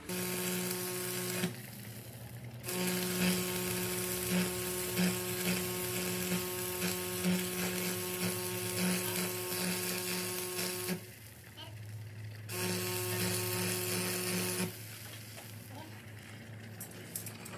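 Stick arc welding on a truck's rear axle housing, welding the axle tube in place. The arc crackles and hisses over a steady electrical buzz in three runs: a short one at the start, a long one of about eight seconds, then a short one, with quiet breaks between them.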